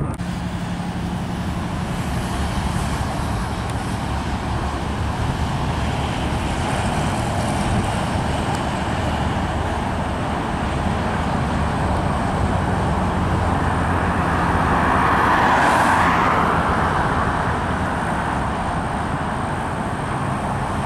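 Steady outdoor rumble of engines and traffic, swelling as a vehicle passes close by about fifteen seconds in.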